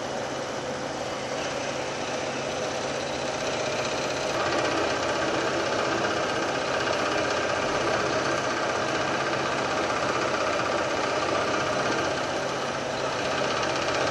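Scroll saw running at a much-reduced speed, its No. 7 Super Sharps blade cutting a sheet of acrylic; the speed is kept low so the acrylic does not melt back together behind the blade. About four seconds in, the sound grows louder and a steady higher whine joins it as the blade bites into the acrylic.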